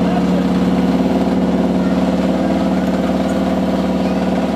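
Engine idling steadily at a constant speed, an even low hum that holds one pitch.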